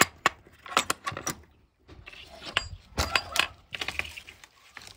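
Metal barrel-bolt latch on a wooden coop door being worked open: a string of sharp metallic clicks and clinks in the first second and a half, then another cluster of clicks about three seconds in, followed by a brief rustle.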